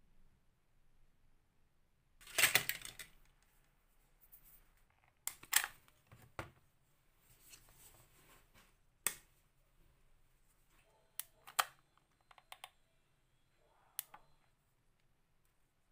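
Thin plastic pieces being handled and knocked together while hot-gluing: a rustling crinkle about two seconds in, then about half a dozen short sharp clicks and taps.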